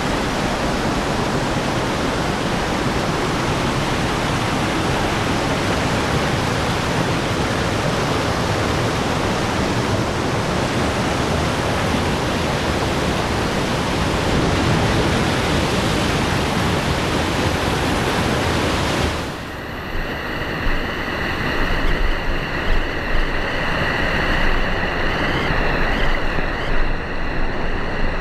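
Rushing river water, a loud steady rush. About two-thirds of the way through, the sound changes abruptly to a duller, uneven rush with low buffeting.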